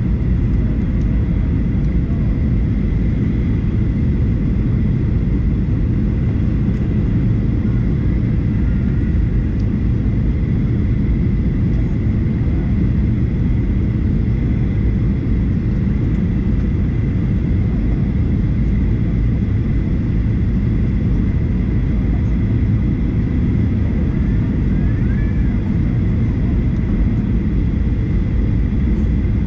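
Boeing 737-800 cabin noise heard from a window seat behind the wing: the CFM56-7B engines and airflow making a steady low rush with a thin high whine above it, as the jet descends toward landing.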